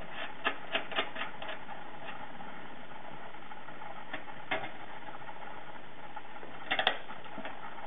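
Small screws and a metal mounting plate clicking and tapping against a steel cable tray as the plate is screwed fast: a quick run of clicks at the start, a couple of single clicks midway, and a louder cluster of clicks near the end.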